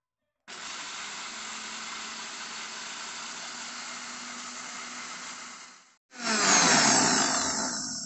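Electric blender grinding roasted nuts into a dry meal. It runs steadily for about five seconds, stops briefly, then runs again noticeably louder for about two seconds near the end.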